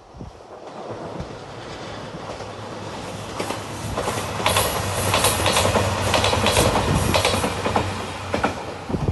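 JR Shikoku 2700 series diesel train passing close by, growing louder as it approaches. A quick clickety-clack of wheels over the rail joints is loudest from about four seconds in and eases off near the end.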